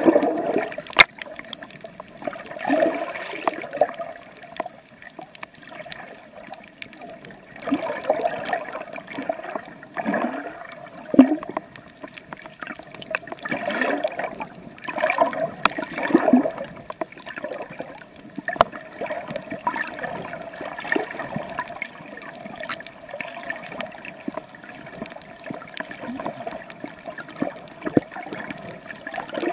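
Water gurgling and sloshing around a camera held underwater while swimming, in irregular swells every few seconds with occasional clicks.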